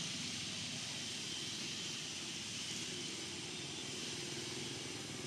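Steady outdoor background: a low, even mechanical drone under a constant high hiss.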